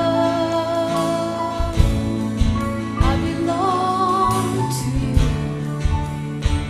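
Worship band music: a singer holds long notes, sliding up into them, over steady bass and regular drum hits.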